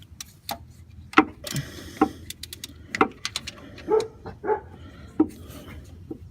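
Irregular metallic knocks and clicks, a dozen or so spaced unevenly, some with a short ring: a socket and spanner clanking on the starter motor's mounting nut and bolt while the bolt is worked loose.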